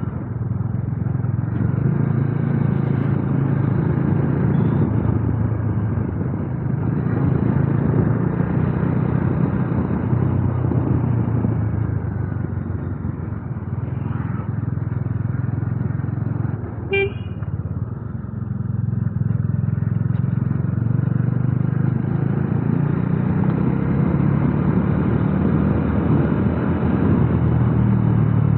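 Bajaj Dominar motorcycle riding on the road, its engine running steadily with road noise, easing off around the middle and pulling harder again later. A short vehicle horn toot sounds once a little past the middle.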